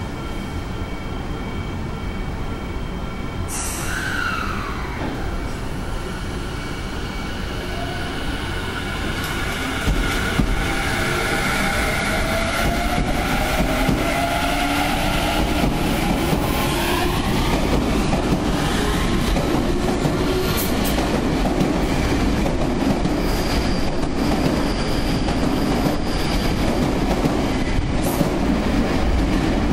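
Tobu 50070 series electric train pulling away from an underground station platform. Its IGBT VVVF inverter whines in several rising tones as it accelerates. Wheel and rail noise grows louder from about ten seconds in, with clacks over the rail joints as the cars pass.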